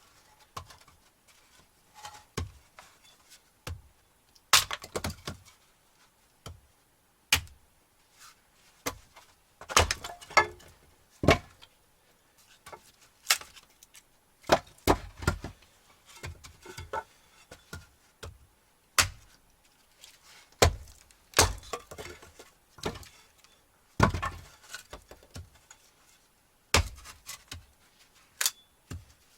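Firewood and kindling being broken and stacked to light a wood stove: irregular wooden knocks, cracks and snaps, some sharp and loud, with short pauses between.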